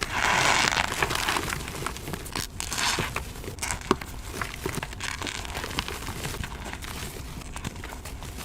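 Fresh gym chalk and cornstarch being crushed by hand: a loud crunch at the start, another about three seconds in, then softer crumbling with small sharp crackles.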